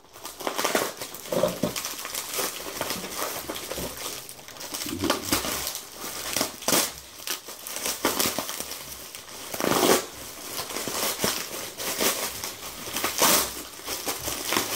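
Clear plastic wrapping crinkling and crackling as it is pulled and peeled off a small package by hand, in irregular bursts with a few louder crunches.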